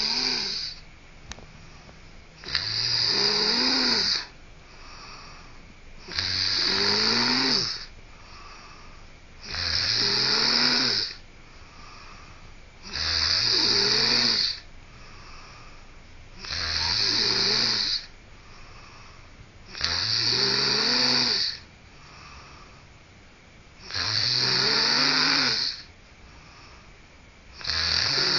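A person snoring in a steady rhythm: a snore of about a second and a half roughly every three and a half seconds, each one rising and then falling in pitch.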